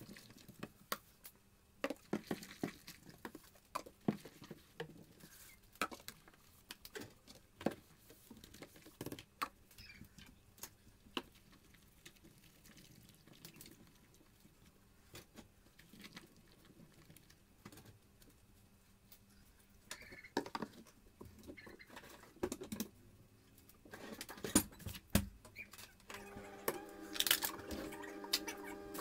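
Dishes and a pot being washed by hand in a metal sink: scattered light clinks, knocks and scrubbing. Near the end a steady hum with several pitches starts.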